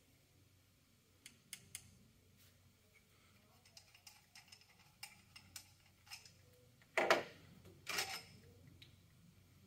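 Light clicks and taps of metal engine parts being handled on a GY6 scooter engine's cylinder head, then two louder metallic scraping rattles about seven and eight seconds in as the rocker arm assembly is worked off the head.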